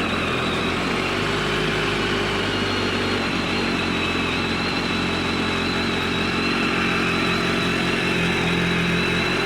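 BMW K1300S motorcycle's inline-four engine idling steadily just after being started, running on freshly changed oil.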